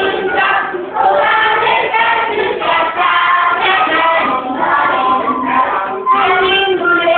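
A group of voices, children among them, singing a song together.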